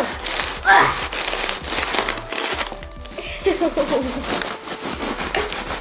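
A blade sawing through the dry papery shell of a large wasp nest, a dense crackling and crunching of the paper.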